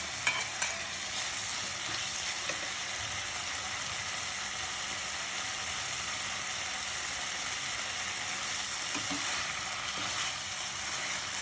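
Chicken frying in spiced masala in a pan, a steady sizzle, with a few utensil clicks against the pan at the start.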